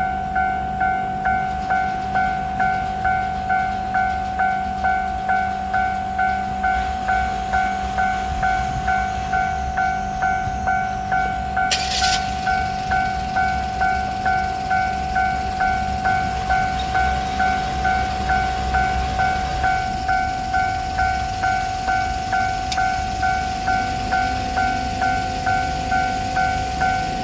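Japanese railway level-crossing bell ringing in its steady, even kan-kan rhythm, with a train's low rumble underneath. A brief hiss comes a little before halfway.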